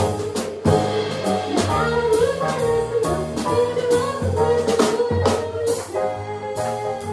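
Live jazz: a woman singing into a microphone, backed by upright bass and a drum kit with regular cymbal strikes.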